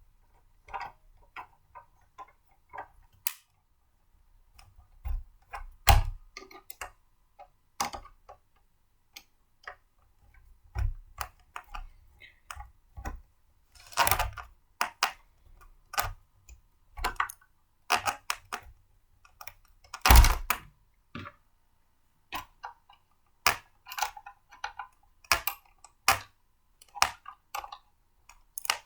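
Blender parts being handled and fitted together during assembly: irregular clicks, taps and knocks, with a louder knock about six seconds in and another about twenty seconds in.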